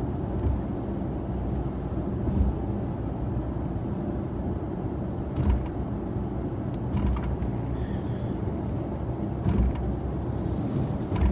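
Road and engine rumble heard inside a moving vehicle, steady and low, with several short knocks and jolts from bumps in the road.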